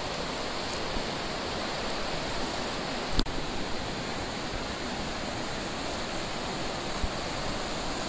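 Steady rush of flowing stream water, with a single sharp knock about three seconds in.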